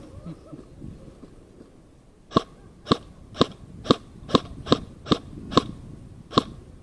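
Airsoft rifle fired nine times in single shots, roughly two a second, each a sharp crack with a short metallic ping. The shooting starts about two and a half seconds in.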